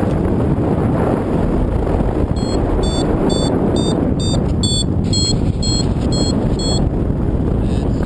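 Strong wind buffeting the microphone in flight under a paraglider. About two seconds in, a paragliding variometer starts its climb beeps, about two to three short beeps a second, and they stop near seven seconds: the glider is rising in ridge lift.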